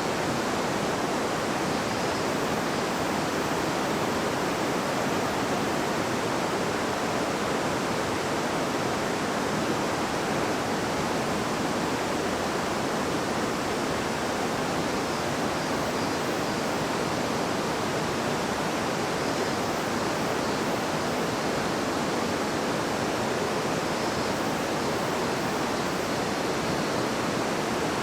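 A babbling river flowing steadily, its water rushing over stones in an even hiss.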